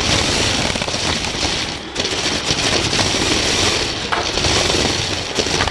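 Lego Technic remote-control car driving, heard from the camera riding on board: a loud, dense crackling rattle of plastic parts, gears and wheels, dipping briefly about two seconds in.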